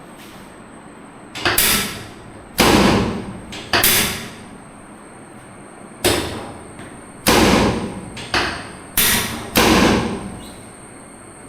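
A series of eight sharp, loud thuds during a chiropractic spine adjustment, unevenly spaced, some in quick pairs, each dying away in under a second.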